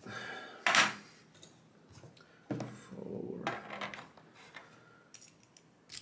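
Small metal lock parts and tools handled on a desk: a short metallic jangle just under a second in, then softer handling and rubbing, and a few light clicks near the end.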